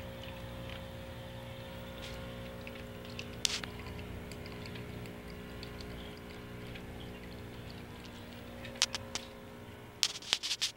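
Small homemade tabletop water fountain running, its pump giving a steady hum. There is a sharp click about three and a half seconds in and a cluster of sharp clicks near the end.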